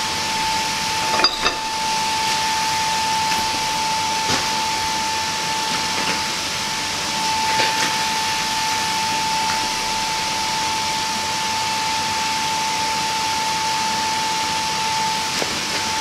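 Steady hiss of a running forge with a constant high whine, while a hot square steel bar is twisted with a twisting wrench. A few light metallic clicks come from the wrench on the bar, two about a second in and others at about four and eight seconds.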